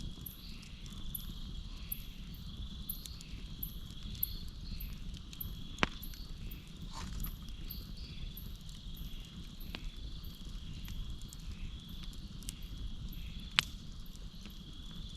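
Campfire crackling with scattered sharp pops, two louder ones standing out partway through, over a steady chorus of crickets chirping in a pulsing rhythm.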